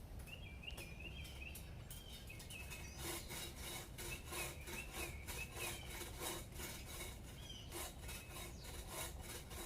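Hand saw cutting through a tree branch, a steady run of back-and-forth strokes starting about three seconds in. Birds chirp throughout.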